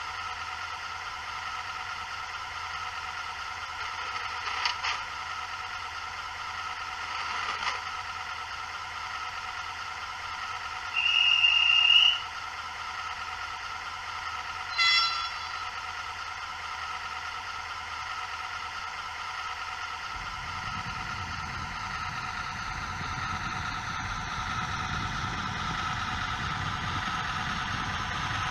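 Model train sounds under a steady hum. A single high horn toot about eleven seconds in is the loudest moment, and a shorter, shriller toot follows a few seconds later. From about twenty seconds in, a low engine rumble builds as the train gets ready to move off.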